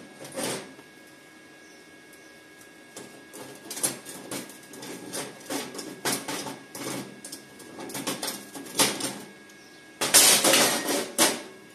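Steel plate offcuts being handled on a steel welding table: irregular clanks and scrapes of metal on metal, with a louder stretch of scraping about ten seconds in. A faint steady high whine sounds underneath.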